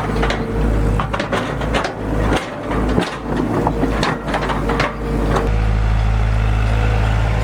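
Excavator's diesel engine running steadily, with repeated knocks, clatter and cracking of wood as it works for the first five seconds or so, then the engine alone.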